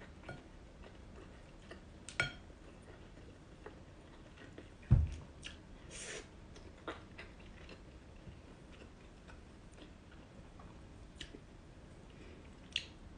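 A person eating fish and rice by hand: quiet chewing and lip smacks with scattered light clicks, a dull thump about five seconds in, and a wet smack around six seconds as she sucks her fingers.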